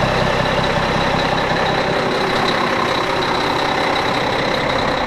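Volvo D12 inline-six turbo diesel idling steadily, warming up after a cold start, with a faint steady high whine over the engine's running.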